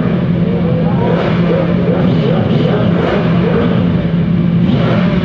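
A group of sport motorcycles running in a pack, their engines idling steadily with a series of short throttle blips through the middle.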